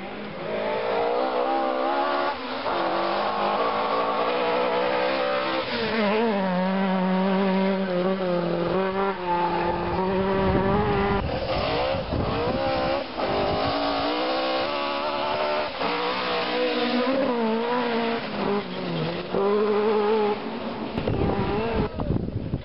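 Ford Escort Mk2 rally car at full throttle on a gravel stage, its engine note climbing and dropping again and again through gear changes and lifts for the corners as it approaches and passes.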